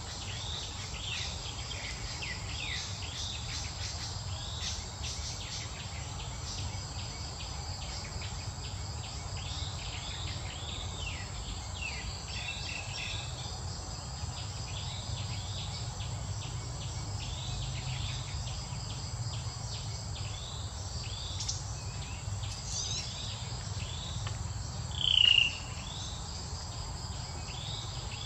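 Insects chirping steadily, with rapid short high chirps over a constant high buzz and a low rumble underneath. Near the end a single loud, high, falling call stands out for about half a second.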